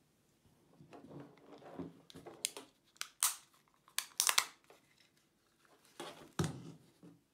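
Handling noise from an Energizer Vision HDA32 headlamp: rubbing and rustling of the plastic housing and elastic headband, then a series of sharp plastic clicks and snaps as the battery compartment door is shut, with one more click near the end.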